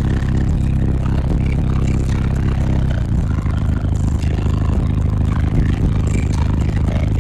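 Twelve Sundown SA 15-inch subwoofers in a fourth-order clamshell box play deep bass notes at very high volume inside the vehicle. The notes shift in pitch about three seconds in.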